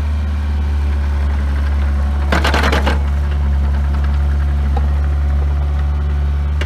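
The 42 hp Kubota diesel engine of a 2005 Bobcat 430ZHS mini excavator running steadily with a deep hum. A brief clattering rattle comes about two and a half seconds in.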